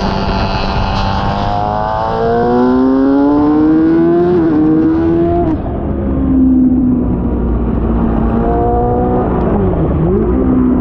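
Sport motorcycle engine accelerating hard: revs climb for a few seconds, then drop sharply at a gear change about five and a half seconds in. They climb again after that, with a quick dip and recovery near the end.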